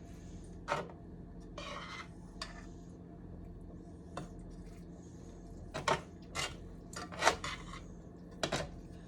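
A utensil clinking and scraping against cookware: about eight sharp, scattered knocks and a short scrape about two seconds in, over a steady low hum.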